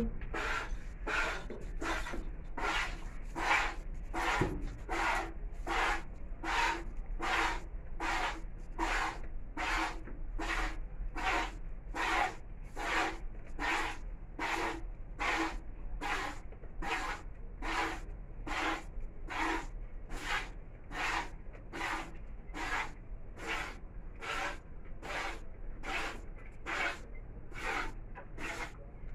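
Cow being milked by hand: regular squirts of milk hissing into the container, a little under two a second, one after the other without a break.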